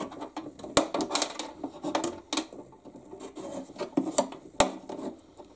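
Hands handling motor wires and crimped bullet connectors inside a plastic RC boat hull. The sound is a rubbing, scraping rustle with repeated small clicks and a few sharp knocks, the loudest about a second in and near the end.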